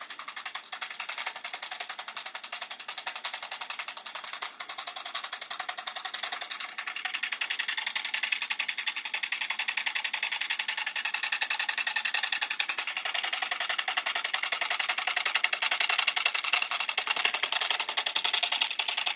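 Homemade reed-switch brushless DC motor running, a fast, even mechanical buzz of rapid ticks that grows louder over the first several seconds and then holds steady.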